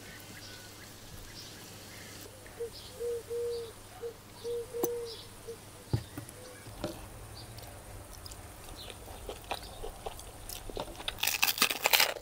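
Sauce squeezed from a plastic squeeze bottle, sputtering out in several short pitched spurts. Near the end comes loud crunching as crusty bread is bitten into.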